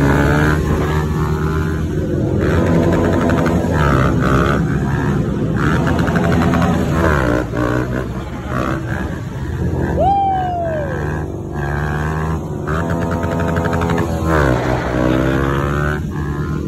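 Small single-cylinder mini bike engines, a Honda Grom among them, revving while riders pull wheelies. The revs rise and fall in repeated sweeps.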